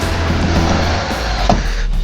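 Background music with a loud, steady bass line.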